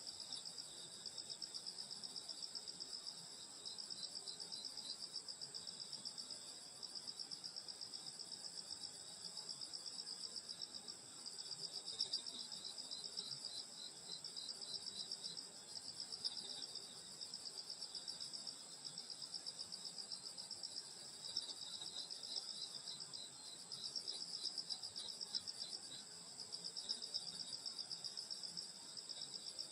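Summer night chorus of grass insects, crickets among them, trilling steadily in rapid pulses. A lower, pulsed chirping joins in at times, about a third and again two-thirds of the way through.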